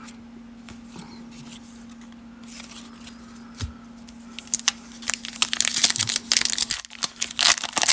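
Foil wrapper of a Topps baseball card pack crinkling and tearing as it is ripped open, starting about halfway in.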